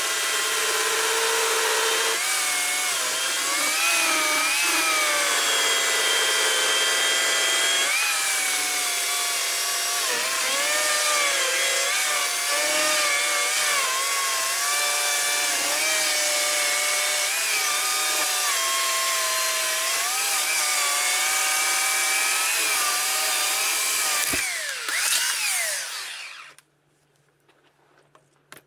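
Oregon CS1500 18-inch electric chainsaw cutting through a log, its motor whine dipping and recovering in pitch as the chain bites. Near the end the cut is finished and the motor winds down to a stop, leaving near silence.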